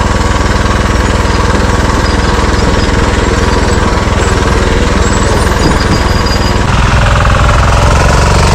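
Engine of a modified off-road riding lawn mower running with a rapid, rattly pulsing, getting louder about two-thirds of the way through as it is throttled up.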